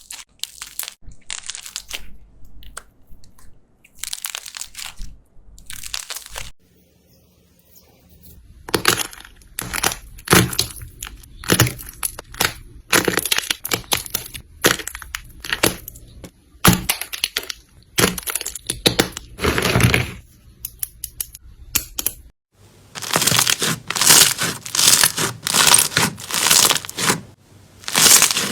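Slime being squeezed and pressed by hand, giving repeated bursts of crackling, crunching sounds, with a brief quieter pause about seven seconds in and denser, louder crunching in the last few seconds.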